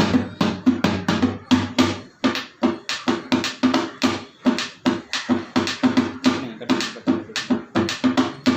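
Rhythmic drum-led music, with sharp, evenly spaced strokes about three to four a second over a low pitched tone.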